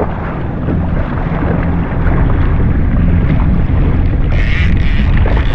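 Jet ski engine running steadily with wind buffeting the microphone. A brief hiss rises over it about four seconds in.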